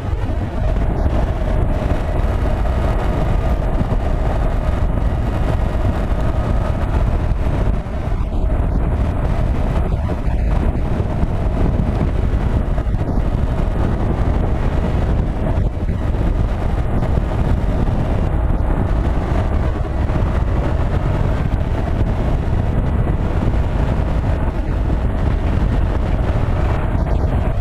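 Yamaha FZ-07 motorcycle's parallel-twin engine running steadily at cruising speed, mixed with wind noise on the bike-mounted microphone.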